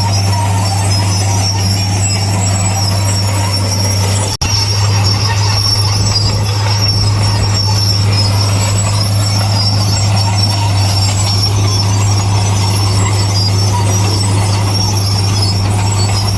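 Heavy earthmoving machinery running steadily: a constant low diesel drone with a thin high-pitched squeal over it, cut off briefly about four seconds in.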